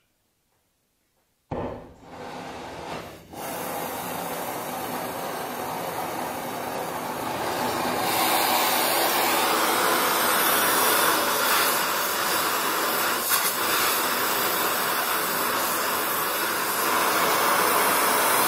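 Donmet 132A micro oxy-fuel gas welding torch lit with a sudden start about a second and a half in, after a couple of brief sputters settling into a steady flame hiss, which grows louder about eight seconds in as the flame works on a steel pipe.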